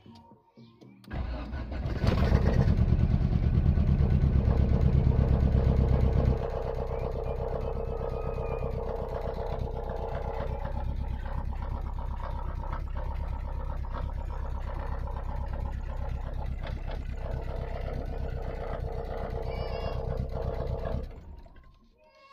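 Volkswagen Golf Mk1 inline four-cylinder engine starting about a second in, running loud and fast for about four seconds, then settling to a steadier, quieter idle until it stops near the end. It starts now that its crank-no-start fault has been fixed.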